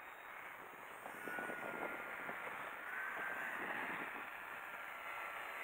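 Electric RC model triplane's brushless motor and propeller whining in flight, faint at first and getting louder as it comes closer, its pitch rising and falling with the throttle. Gusts of wind buffet the microphone.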